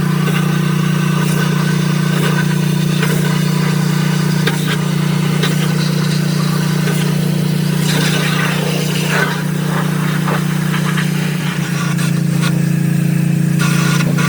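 A machine running steadily with an even low hum, with scattered clicks and knocks of metal work over it; the hum changes slightly near the end.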